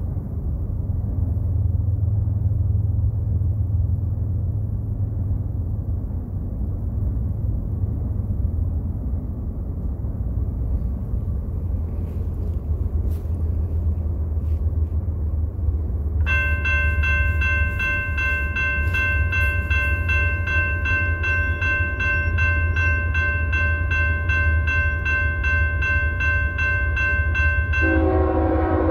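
A low steady rumble, then about sixteen seconds in a railroad grade crossing's warning bell starts ringing with rapid, even strokes, the signal of an approaching train. Near the end a locomotive horn begins to sound over the bell.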